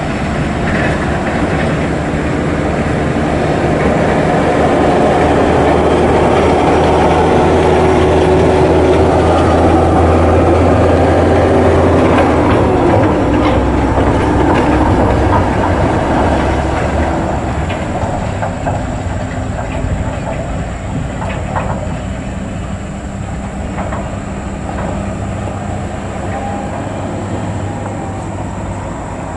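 Volvo FH16 dump truck's 16-litre straight-six diesel engine running under load as the truck drives slowly up a dirt haul road, a steady low drone that swells and then eases off after about 16 seconds.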